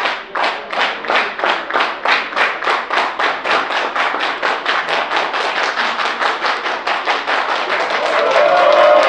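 An audience clapping in unison, about two to three claps a second and quickening, breaking into free applause near the end, where a voice calls out.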